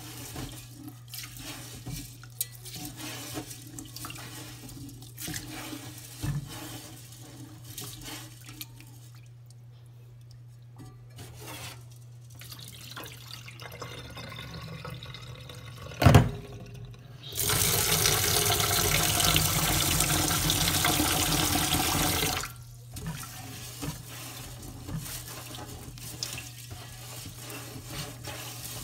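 Rice being washed by hand in water in a rice cooker's inner pot in a stainless steel sink: soft swishing and splashing, the cloudy rinse water poured off, a sharp knock about midway, then the tap runs into the pot for about five seconds before the swishing starts again. A steady low hum sits underneath throughout.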